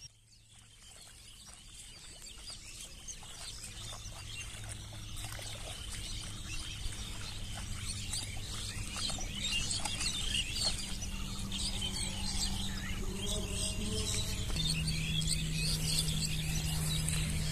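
Birds chirping and twittering, growing steadily louder from faint at the start, over a low steady hum whose pitch steps up near the end.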